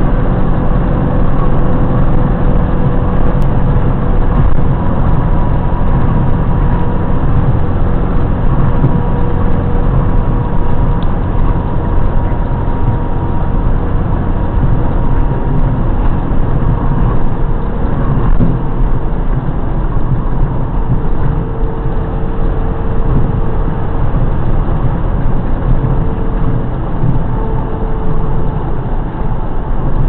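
Steady engine and road noise inside the cab of a box truck driving at speed, with a faint steady whine above the low drone.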